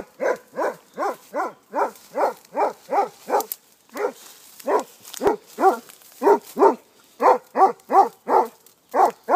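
A scent-trailing hunting dog barking over and over, about two to three barks a second with a brief pause partway through: a hound giving tongue as it works a scent line through the brush.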